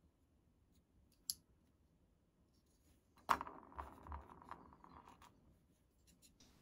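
Small handling sounds of hobby tools: a sharp tap about halfway through as a pin vise is set down on a cutting mat, followed by a couple of seconds of light rattling clicks as a coil of fine wire is picked up and handled, with a faint click earlier and a few ticks near the end.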